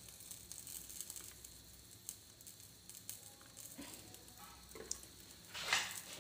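Freshly poured oil heating in a kadai on a gas burner, sizzling and crackling faintly. A louder burst of noise comes a little before the end.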